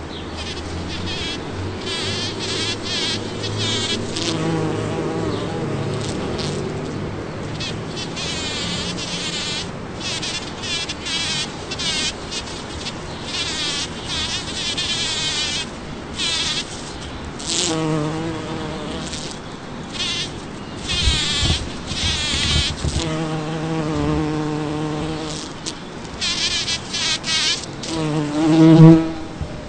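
Bumblebee buzzing in repeated bursts as it works rose blossoms, with a louder buzz at times: the harvesting buzz, made by vibrating its flight muscles while the wings stay at rest. The loudest buzz comes near the end.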